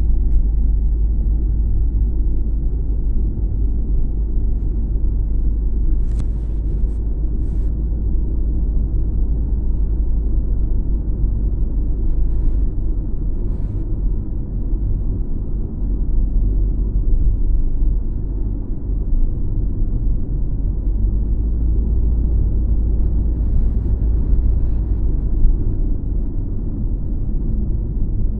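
Steady low rumble of road and engine noise inside a moving car's cabin, with a few faint ticks now and then.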